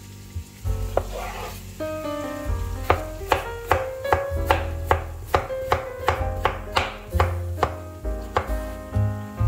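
Kitchen knife slicing a raw peeled potato on a bamboo cutting board: a few scattered knocks, then from about three seconds in a steady run of cuts, about two and a half a second, each one knocking on the board.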